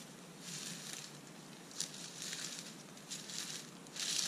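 Footsteps crunching through dry leaf litter at a steady walking pace, the crunches getting louder near the end as the walker comes closer.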